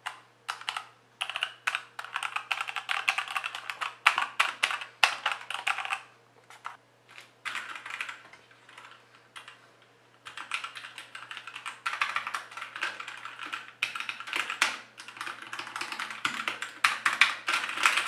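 Fast typing on a Motospeed CK104 mechanical keyboard with Outemu Red linear switches: rapid runs of key clacks, thinning to a few scattered keystrokes for a few seconds in the middle before the fast typing resumes. Quiet for a mechanical keyboard.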